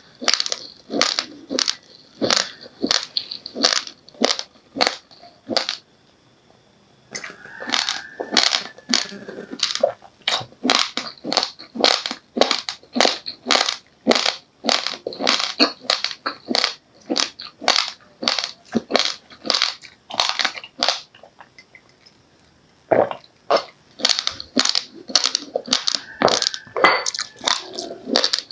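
Raw, uncooked rice grains being chewed: a steady crunching at about two crunches a second, broken by two short pauses.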